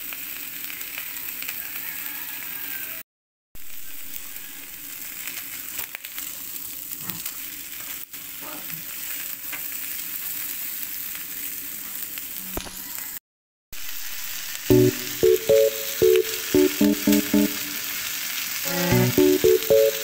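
Steady sizzling hiss of hot grilled ribs, cut off twice by brief silent gaps. About three-quarters of the way through, music with distinct pitched notes comes in over it and is the loudest sound.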